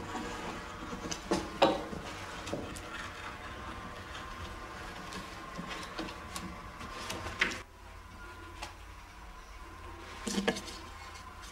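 Light wooden clicks and knocks over a steady hum, as a roller is worked along spindlewood stringing to press it into its glued groove in a tabletop. The hum changes abruptly about two-thirds through, and a short burst of wooden knocks comes near the end as turned wooden chair parts are handled.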